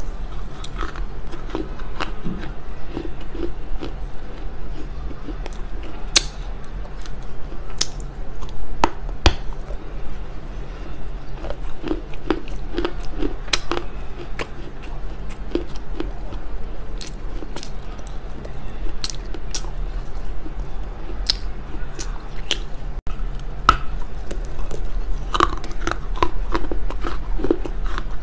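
Close-miked biting and chewing of smoked Chinese loess clay: dry, sharp crunches and cracks at irregular intervals, over a steady low hum.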